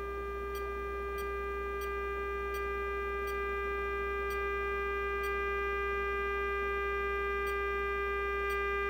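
Steady sine-wave test tone from the LM386 audio amplifier under test, slowly getting louder as the signal generator's input level is turned up toward 2 volts output, over a low mains hum, with faint ticks about once or twice a second.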